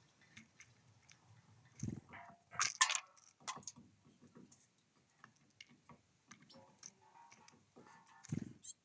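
Birds feeding at a bird feeder: scattered beak taps and clicks on seed. A louder rustling scrape about three seconds in, and dull thumps about two seconds in and near the end as birds land on or knock the feeder.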